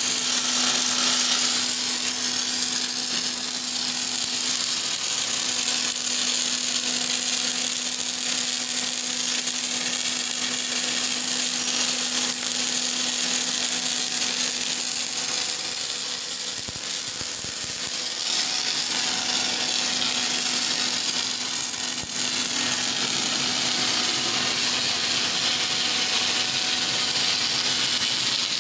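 CLOOS welding robot's wire-fed arc welding torch running a continuous weld on steel, a steady hissing crackle with a low hum beneath it. It softens for a few seconds about halfway through, then picks up again about 18 s in.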